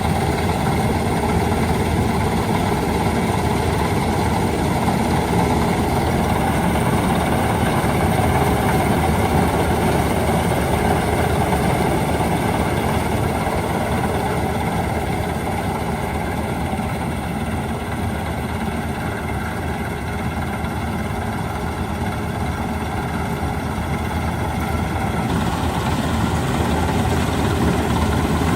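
Preet 987 combine harvester's diesel engine running steadily. Its higher-pitched part gets louder a few seconds before the end.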